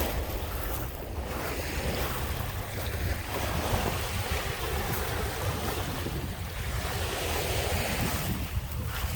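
Lake waves washing onto the shore in repeated swells of hiss, with wind rumbling on the microphone.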